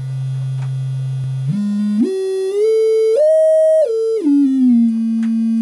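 Sine-wave test tone played through a PAM8302 class-D amplifier into a speaker, with a rough, overtone-laden edge. It holds a low steady pitch, then steps up in pitch about a second and a half in and steps back down near the end. The harshness is the wheeze the amplifier adds, sounding like an overloaded input; the owner suspects a defective board.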